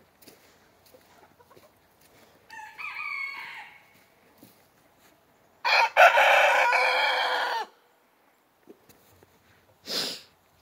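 Indian Malay rooster crowing once, loud and about two seconds long, a little past the middle, after a fainter, shorter rooster call about three seconds in. A brief sharp noise comes near the end.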